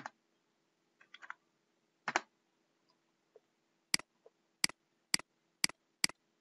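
Computer mouse clicks. A few softer clicks come in the first two seconds, then a run of five sharp clicks about half a second apart starts around four seconds in.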